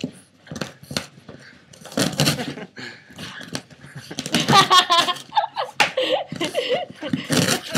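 Boston Terrier ripping and shaking cardboard in its teeth, a series of short crunching, tearing bursts, with a person laughing about halfway through.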